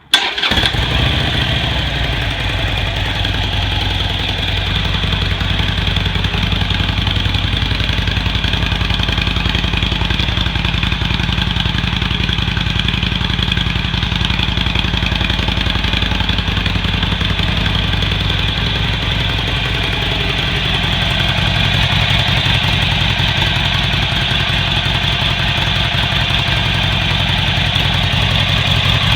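Harley-Davidson Iron 883's air-cooled V-twin, through the stock exhaust, starting at once and settling into a steady idle.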